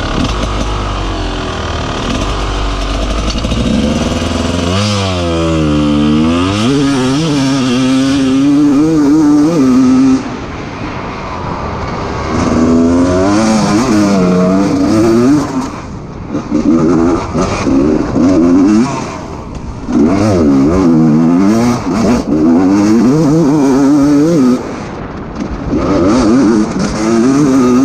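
GasGas EC 250 two-stroke enduro engine ticking over, then revving hard as the bike launches about four seconds in. It pulls up through the gears, the pitch climbing and falling again and again, with short drops in level when the throttle closes for shifts and corners.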